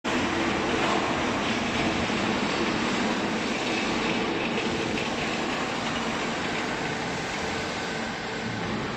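Steady noise of factory machinery running, a continuous rumble with a faint hum underneath.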